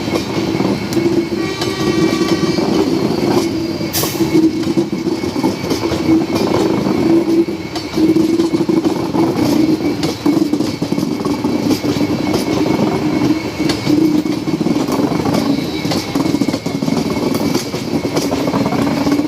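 Train passing at close range: a steady rumble with wheels clicking over the rail joints throughout. A brief high tone comes about two seconds in and a sharp crack at about four seconds.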